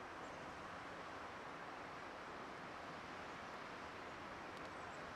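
Steady, even background hiss of outdoor ambience with no distinct events, and a faint tick near the end.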